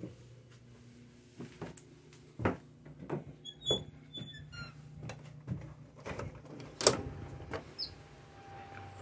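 A metal security door being unlatched and opened by its lever handle: a string of clicks and clunks from the latch and frame, the loudest knock about seven seconds in.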